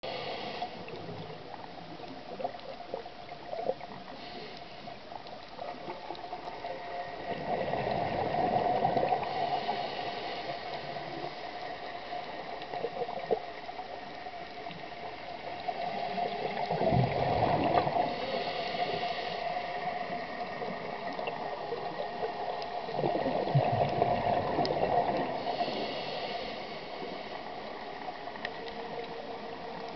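Underwater, a scuba diver's exhaled bubbles gurgle and rush from the regulator in three bursts about eight seconds apart, with a faint steady hiss in between.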